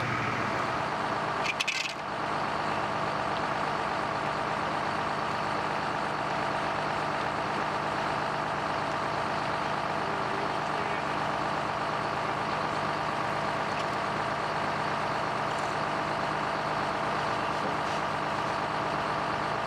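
Fire engine running steadily beside the hose lines, a continuous engine drone, with a brief crackle and dip about two seconds in.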